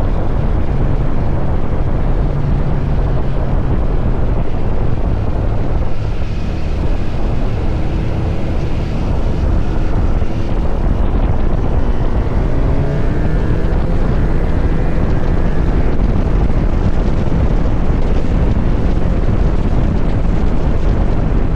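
Kawasaki Z900 SE's inline-four engine through an SC Project CR-T exhaust, ridden at speed, with heavy wind noise on the microphone. The engine pitch climbs a few times around the middle as the bike accelerates.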